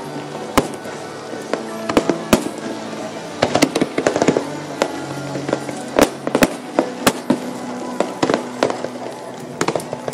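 Aerial fireworks bursting in many sharp, irregular bangs, several close together at times, over music playing steadily underneath.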